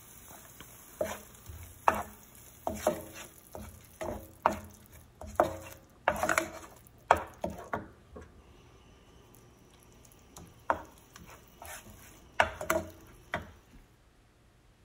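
Slotted wooden spatula stirring a thick vegetable stew in a nonstick frying pan, scraping and knocking against the pan in short strokes about a second apart, with a pause of a couple of seconds in the middle.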